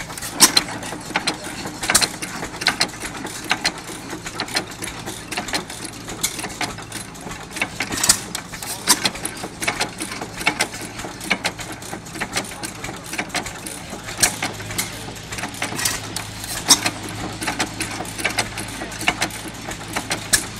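Galloway 5 HP single-cylinder hit-and-miss gas engine running, with a steady stream of sharp clicks and stronger irregular pops every second or two as it fires and coasts.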